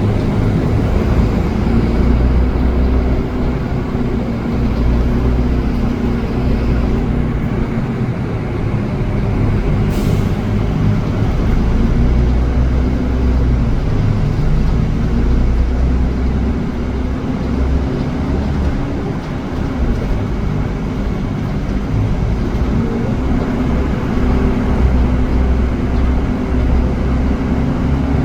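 Istanbul Metrobüs bus running along its route: a steady engine drone with road noise, the engine note drifting slightly up and down with speed.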